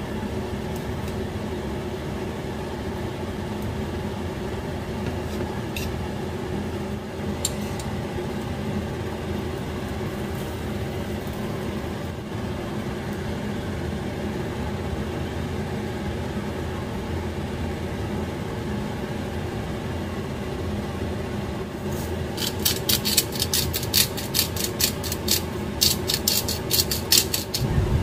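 Steady electric fan hum from the kitchen, joined near the end by a quick run of sharp metallic clinks as metal tongs knock against a stainless steel saucepan while tomatoes are turned in the boiling water.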